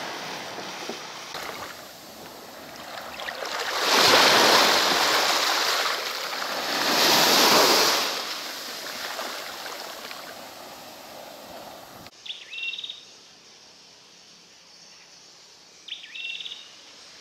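Small surf washing up a sandy beach, swelling twice as waves run up the shore. The surf then cuts off abruptly, and over a quiet background a bird gives two short chirping calls a few seconds apart.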